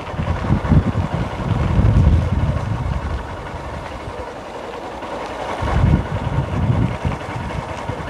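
A motorbike's engine running as it rides along, under low rumbling wind buffeting on the microphone that swells twice.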